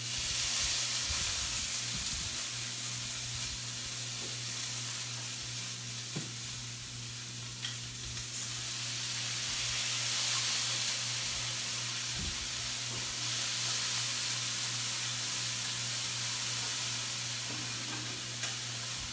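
Tomato chunks, garlic, olives and capers frying in olive oil in a pan, a steady sizzle that swells a little twice, with a few light clicks of a utensil. A steady low hum runs underneath.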